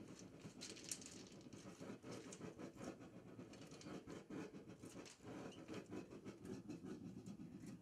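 Small propane melting furnace burning on a very low flame, a faint, irregular puffing flutter: the propane is turned down so scrap aluminum can be added to the crucible.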